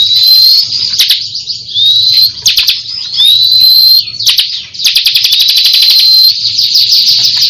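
Bar-winged prinia (ciblek kristal) singing continuously: fast runs of sharp, rapidly repeated notes broken several times by short rising whistles.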